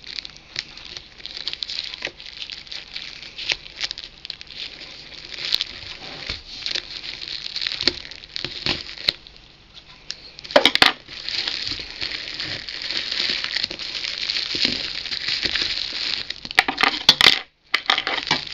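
Black plastic parcel wrapping with clear tape crinkling and rustling as it is handled and pulled at, full of small crackles, with louder bursts of crackling about 11 seconds in and again near the end.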